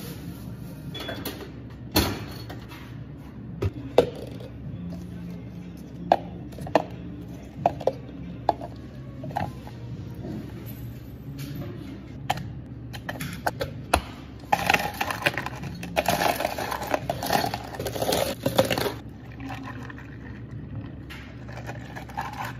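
Bubble-tea drinks being made: hard plastic cups and utensils knock and clack on the counter as separate sharp hits. About fifteen seconds in, a few seconds of ice clatter into the plastic cups. A low steady hum runs underneath.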